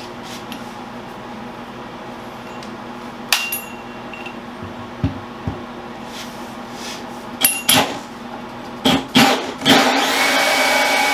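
Cordless drill driving a hole saw into a wooden countertop: the motor runs steadily with a few sharp knocks as the saw grabs, then cuts hard and loud through the wood from about ten seconds in.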